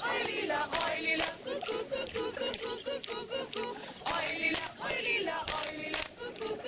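A group of voices shouting and singing together, with louder, higher shouts about half a second in and again about four seconds in.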